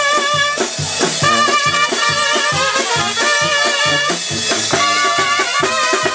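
A live tamborazo banda playing: trumpets carrying the melody over a sousaphone bass line and a steady, quick drum beat.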